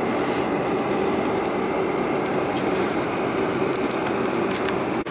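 Steady cabin hum and airy rush inside a Boeing 747-400 parked at the gate, with faint scattered small clicks.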